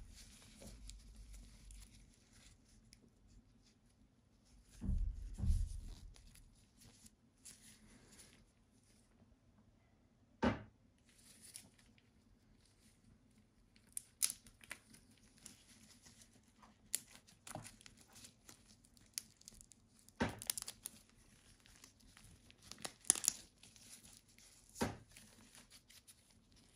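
Close handling noise of gloved hands working a watch and its leather strap: faint rustling and crinkling of nitrile gloves, a dull bump about five seconds in, and a handful of sharp light clicks and taps after that.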